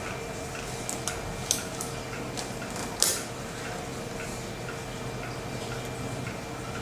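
A few light clicks and taps of small objects being handled, the loudest about three seconds in, over a steady faint hum.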